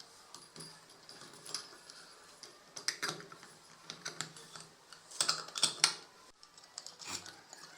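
Irregular light clicks and taps of small hard parts being handled, with a cluster of sharper clicks about five to six seconds in.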